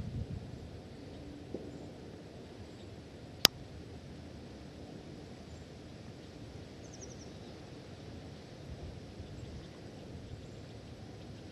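Quiet open-air ambience with a steady low rumbling hiss. A single sharp click about three and a half seconds in, and a faint quick run of high chirps around seven seconds.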